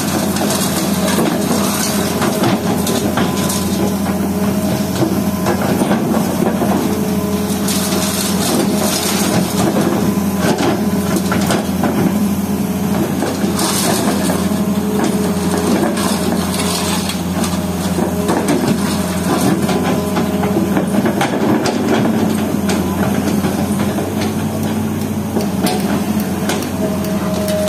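Hitachi Zaxis hydraulic excavator's diesel engine running steadily, with repeated irregular cracking and crunching as its pulverizer jaw works the concrete and brick rubble.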